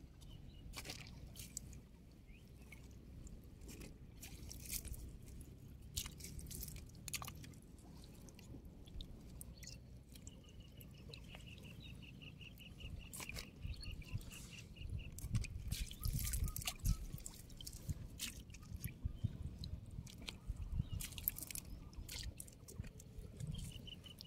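Hands working through wet waterweed and mud in a fishing net: soft squishing and rustling with scattered small clicks over a low rumble. A high, rapid ticking call repeats for several seconds midway and starts again near the end.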